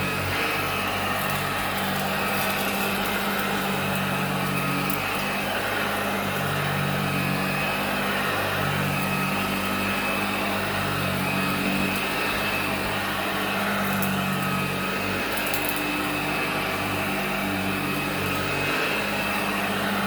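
Hoover Junior 1348 direct-air upright vacuum cleaner running steadily, its motor and fan giving a constant high whine over a low, wavering hum.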